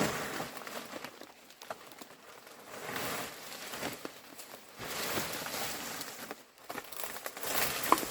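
Leaves or foliage rustling and crinkling in several bouts about a second long, with a few small snaps between them.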